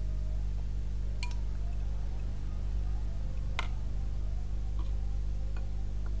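A few sharp, ringing clinks of utensils against a stainless steel pot and a bowl, the loudest about three and a half seconds in, over a steady low hum.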